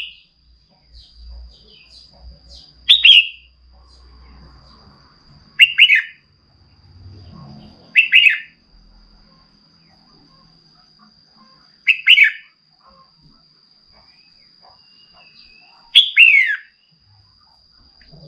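Female red-whiskered bulbul calling: five short, loud, falling double-note calls spaced about two to four seconds apart, the call a hen bulbul uses to stir up a male. A faint steady high tone runs underneath.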